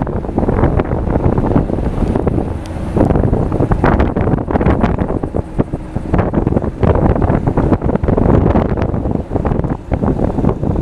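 Heavy wind buffeting the microphone, a loud, uneven rumble that swells and dips throughout. This is the kind of wind roar picked up by a camera moving along a road.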